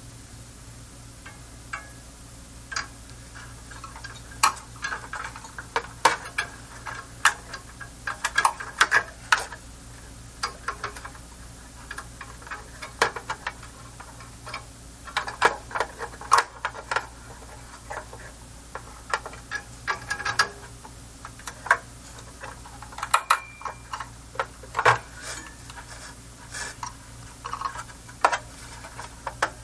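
Irregular small metallic clicks and taps of fingers and a nut working on a screw inside a metal amplifier chassis, as a nut is fiddled into place. A steady low hum runs underneath.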